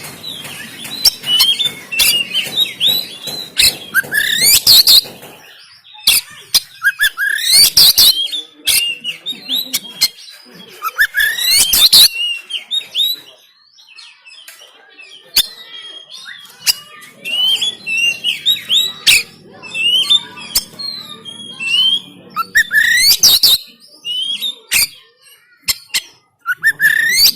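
Oriental magpie-robin (kacer) singing loudly in a varied song: sharp rising whistled sweeps every few seconds, with rapid chattering notes and clicks between them.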